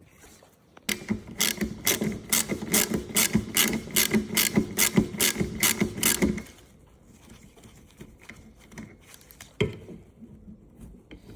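Ratchet wrench with a 12 mm socket clicking rapidly and evenly for about five seconds, undoing the rear wiper arm's retaining nut, then stopping. A single knock follows a few seconds later.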